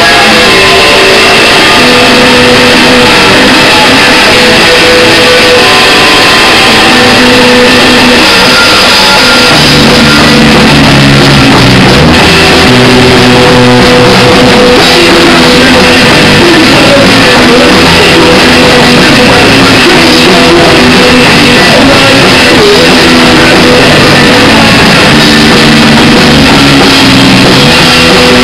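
Live rock band playing very loud: electric guitars and a drum kit. Heavier low notes come in about ten seconds in.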